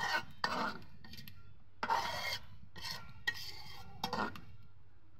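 Metal spatula scraping and stirring through vegetables in a metal karahi, turning a spiced taro-stolon and fish-roe curry: about six rasping scrapes at uneven intervals, one longer stroke about two seconds in, the last a little before the end.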